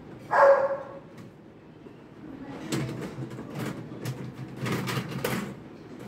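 One short, loud call about half a second in, then a run of clicks and rattles as the filter is pulled out of the sump at the bottom of an LG dishwasher's tub.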